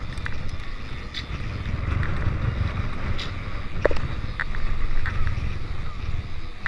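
Mountain bike being ridden on a singletrack trail: wind rumbling over the microphone, with scattered sharp clicks and rattles.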